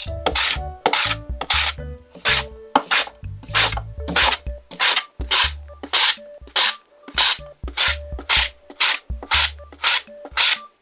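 Raw potato scraped against a kitchen blade in short, evenly spaced strokes, about one every 0.6 seconds, over background music.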